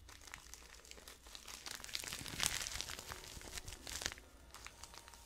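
Quiet, dry crinkling and crackling close to the microphone, most dense about halfway through, as a pinch of something is handled and added while making tea.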